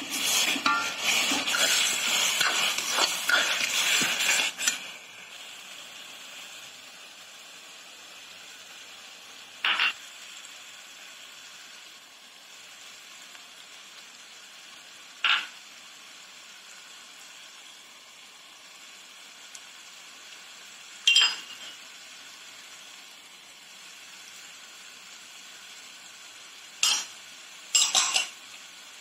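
A metal spoon stirring and scraping a thick curry masala in an aluminium pan for the first few seconds, then the masala sizzling steadily in the pan. Several short clinks of utensils against the pan are spread through, as spice powders are tipped in.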